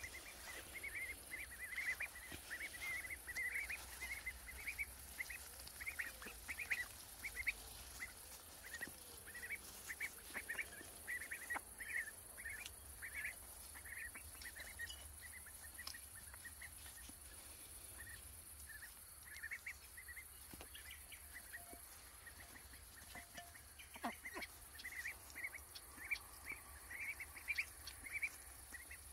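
Young Indian Runner ducks calling as they forage: a stream of short, high peeping calls in quick succession, thinning out in the middle and picking up again near the end. Light rustling of plants runs through it.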